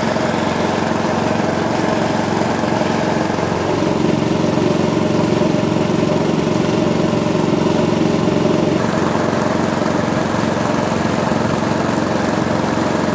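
Small motor boat's engine running steadily under way, slightly louder through the middle.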